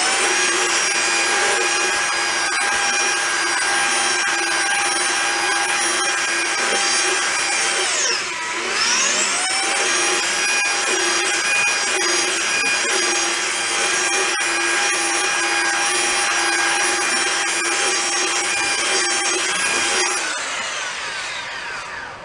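Small handheld electric belt sander running against a painted wooden snare drum shell, sanding it down, with a steady motor whine. About eight seconds in it winds down and spins straight back up, and near the end it winds down to a stop.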